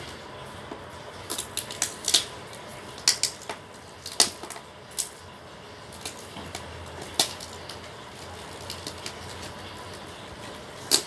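Clear plastic wrapping and packing tape on a parcel crackling and crinkling as fingers pick at it and peel it, in irregular sharp crackles.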